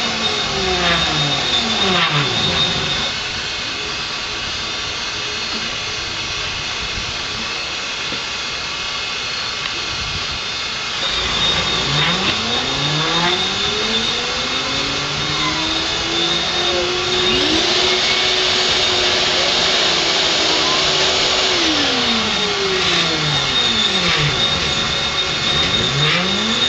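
Grizzly G0619 (SX3) mill converted to CNC running its program: the axis stepper motors whine in pitch glides that rise and fall again and again, over the steady sound of the spindle and a 6-flute carbide end mill dry-cutting 6061 aluminium. It drops quieter from about 3 to 11 seconds in, and around the middle one whine holds steady for several seconds before sliding away.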